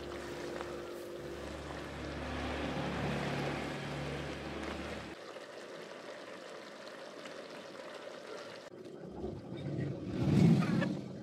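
A silicone spatula stirs thick, creamy spaghetti carbonara in a nonstick pan, making a soft, wet swishing. About ten seconds in there is a louder squelch as the noodles are lifted out of the sauce.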